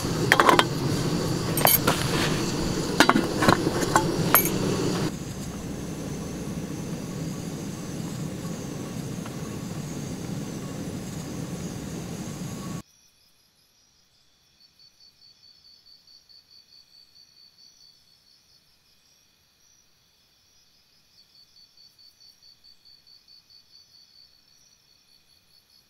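Metal steamer pots clinking sharply several times as they are stacked and set on a portable gas camping stove, with the burner running steadily under them. About 13 s in, the sound cuts off to near silence, with two faint trains of rapid, high insect chirping.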